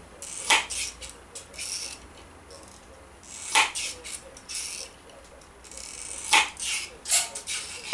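Hand metal snips clipping the corners off a small blank of 18-gauge sheet to make a washer: several sharp snaps of the blades cutting through, a second or more apart, with light scraping and handling between.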